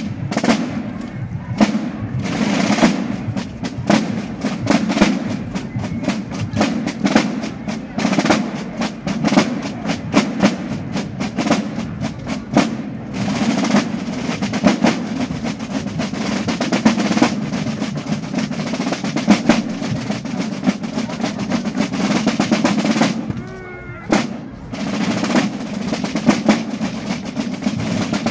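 A corps of Basel Fasnacht drummers playing rope-tensioned Basler drums together while marching: fast rolls and sharp stick strokes in a steady march rhythm. The drumming breaks off for about a second near the end, then starts again.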